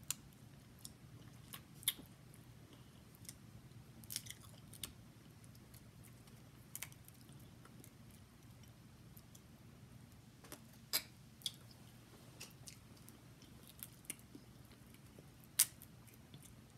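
Snow crab leg shells being cracked and snapped apart by hand: irregular sharp cracks and clicks, the loudest about eleven seconds in and near the end.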